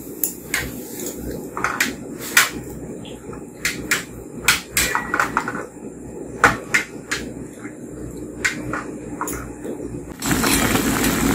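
Metal chopsticks knocking and scraping against a metal pan as pieces of pork are stirred in water, a dozen or more sharp clicks at uneven intervals over a steady low noise. About ten seconds in, a louder steady noise sets in.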